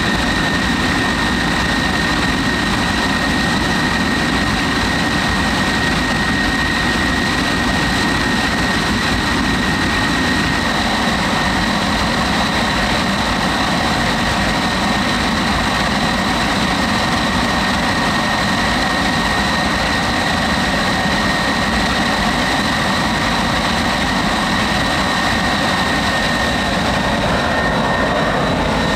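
MiG-15 two-seat trainer's jet engine running steadily on the ground, a loud rushing noise with a steady high-pitched whine over it.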